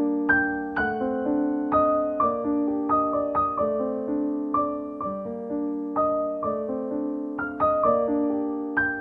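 Solo piano music: a gentle melody of notes and chords struck about two or three times a second, each left to ring and fade.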